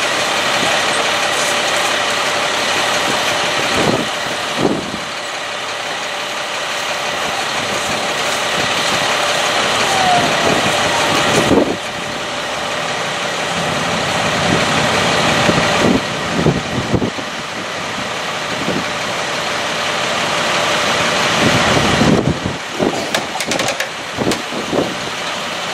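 Heavy machinery engine running steadily, with a faint steady whine over the engine noise.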